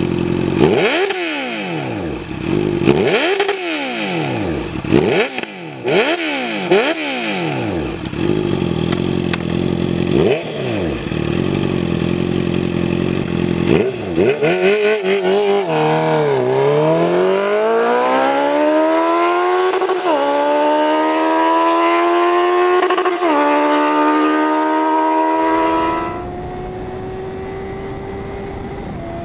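Honda CB650F's inline-four engine through a Jeskap full 4-2-1 aftermarket exhaust: a series of quick throttle blips, the revs jumping up and falling straight back, then the bike accelerating hard with the pitch climbing and dipping at two upshifts. Near the end the sound drops to a quieter, steady tone.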